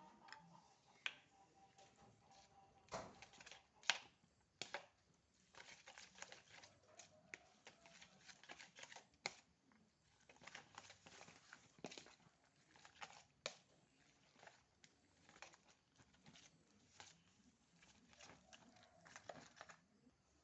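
Scattered soft clicks, taps and rustles from hands at work preparing food, with a sharper click about four seconds in.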